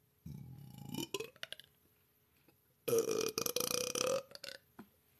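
A woman belching twice: a first burp about a quarter second in that rises in pitch toward its end, then a louder, longer burp starting about three seconds in.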